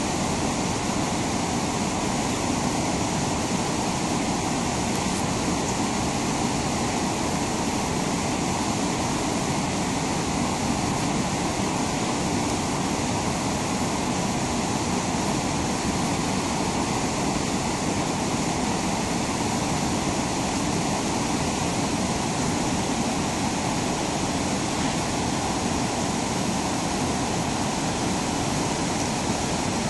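Rushing whitewater of a river's rapids and falls: a steady, unbroken roar of churning water.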